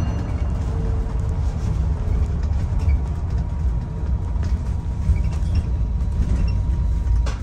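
Low, steady rumble of a London double-decker bus heard from inside, with light rattles and a short knock near the end.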